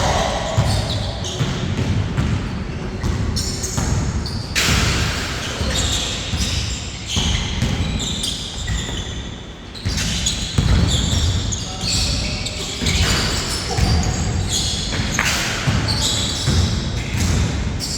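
Basketball bouncing on a court during a pickup game, with repeated dribble thuds, running footsteps and other play noise in a hall.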